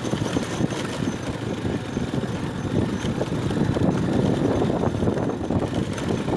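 Motorcycle engine running as the bike rides slowly over a rough gravel road, with a steady low rumble of wind on the microphone.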